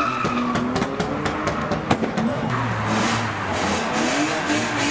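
Drift car's engine revving up and down repeatedly, with a brief tyre squeal at the start and a run of sharp cracks through the first two seconds.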